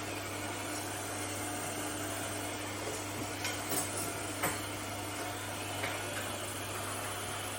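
eufy X10 Pro Omni robot vacuum running with a steady motor hum, with a few light clicks near the middle.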